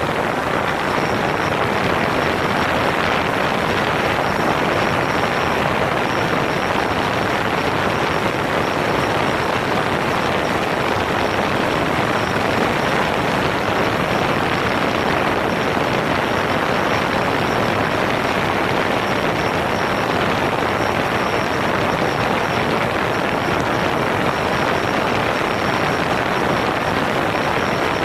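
DJI Phantom 4 quadcopter's propellers and motors running in flight, picked up by a camera mounted on the drone itself: a steady, dense rushing noise with a thin high whine on top.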